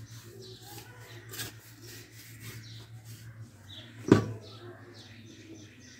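Digging and scraping in dry, loose soil with a small metal blade and bare hands, a run of short gritty scrapes, with one sharp loud knock about four seconds in. A steady low hum runs underneath.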